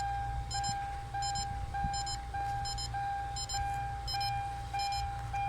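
Electronic warning chime: a steady tone broken into repeating pulses about every 0.6 s, over a low steady hum.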